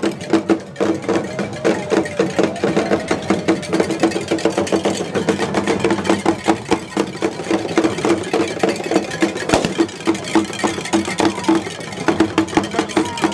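Fontomfrom drums of an Akan royal drum ensemble, beating a steady, dense rhythm.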